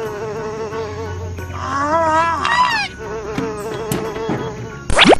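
Toy microwave running with an electronic buzzing hum that wavers slightly in pitch, and a louder wavering whine joins in for about a second partway through. Near the end a quick rising whoosh sounds.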